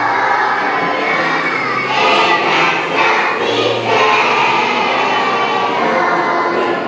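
A group of kindergarten and preschool children singing together as a choir, with held low accompaniment notes underneath.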